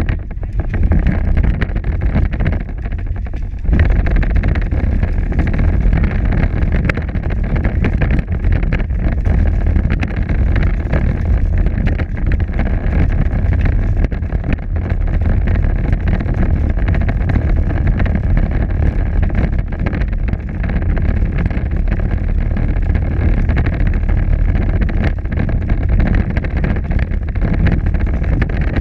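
Power Wheels ride-on toy car driving along a concrete sidewalk: its electric drive motors and gearboxes whine steadily over the rumble and rattle of hard plastic wheels. It eases off briefly about three seconds in, then runs on at full speed.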